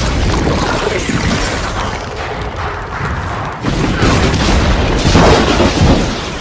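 Loud, dense rumbling noise with deep booms, starting suddenly and swelling twice in the second half: a cinematic logo-intro sound effect.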